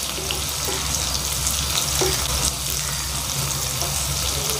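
Turkey berries, small onions, garlic and green chillies sizzling as they sauté in hot oil in a pan, a steady frying hiss with scattered small crackles. A steady low hum runs beneath it.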